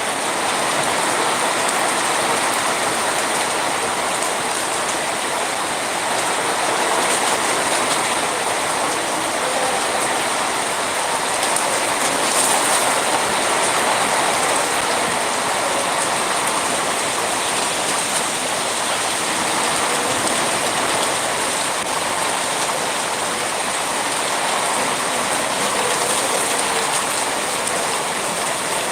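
Heavy rain pouring down in a steady hiss, driven by strong wind, with gentle swells in level.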